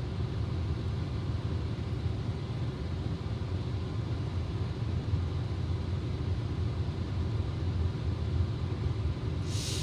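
Steady low background rumble, and near the end a short, sharp hissing intake of breath as a sneeze builds.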